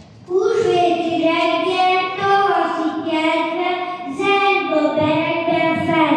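A young boy singing solo and unaccompanied into a microphone, his child's voice holding each note for about half a second to a second.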